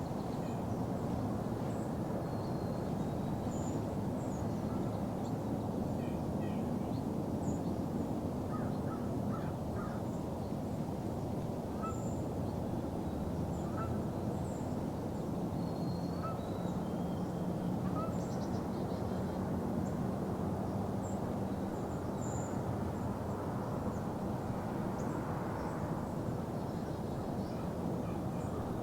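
Open-field morning ambience: a steady low rumble with scattered short, faint bird calls throughout.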